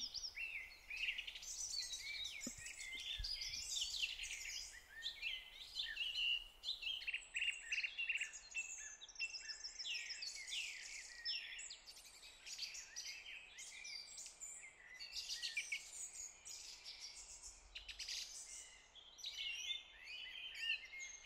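Countryside birdsong ambience: several small birds chirping and trilling in quick, overlapping calls, fairly faint.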